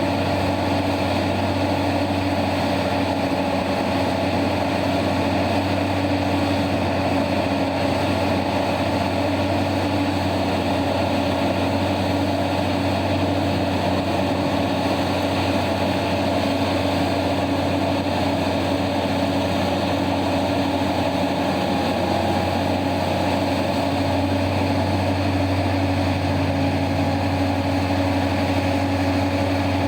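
Heavy diesel mining machinery running steadily, a constant engine drone with no changes in pitch and no impacts.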